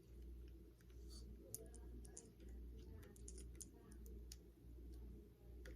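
Faint scattered clicks and light taps of air-compressor hose fittings and accessories being handled, over a low steady hum.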